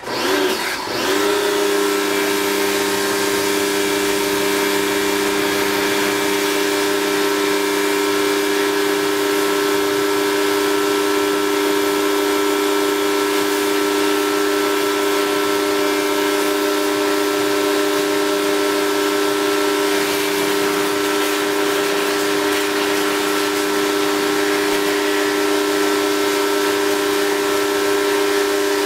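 Portable electric pressure washer running: the motor and pump give a steady high whine, with the hiss of the water jet over it. The pitch wavers briefly in the first second, then holds steady.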